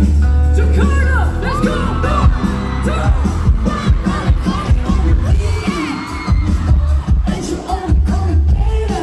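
Live pop band through a concert PA: heavy bass, drums and a sung vocal line, with audience noise mixed in.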